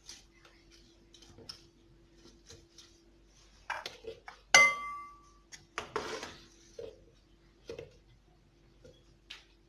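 Kitchen dishes and utensils knocking and clinking as lemons are squeezed by hand, with one loud ringing clink of metal or glass about four and a half seconds in. A faint steady hum lies underneath.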